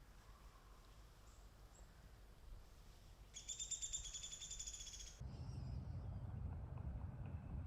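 Faint woodland birds chirping, then a fast, high-pitched trill from a small bird for about two seconds. Partway through, the sound changes abruptly to a steady low noise.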